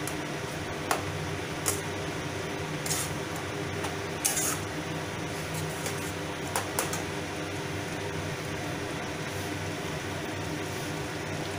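A flat metal spatula clinking and scraping against a stainless steel pan while stirring a thick curry: a handful of short knocks in the first seven seconds or so, then only a steady background hum.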